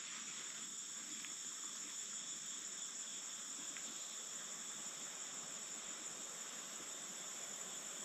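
Steady, high-pitched chorus of insects trilling without a break.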